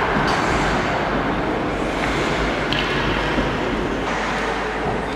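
Indoor ice rink ambience: a steady rushing noise of skates carving the ice and the rink's machinery, with a few short sharp clicks from sticks or pucks.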